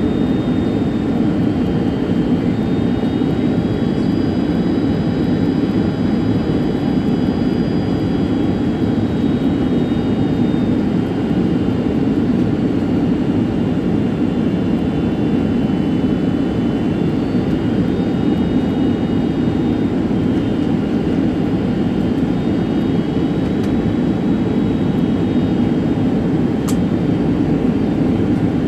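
Steady cabin noise of a jet airliner descending on final approach: an even rush of engine and airflow, with faint high whining tones that drift slightly in pitch.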